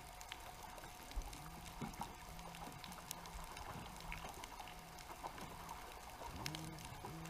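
Underwater ambience picked up through a GoPro's waterproof housing: faint scattered clicks over a steady hum, with a short low tone repeating about once a second.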